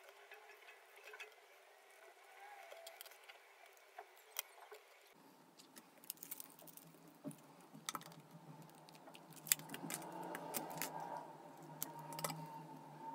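Faint clicks, taps and scrapes of wooden popsicle sticks being handled and cut with a utility knife, then snipped with scissors near the end. A faint steady hum joins in the second half.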